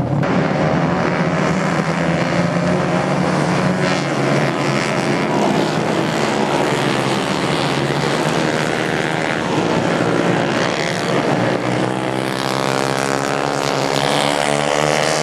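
Several racing kart engines buzzing together, their overlapping pitches sliding up and down as the karts rev and accelerate.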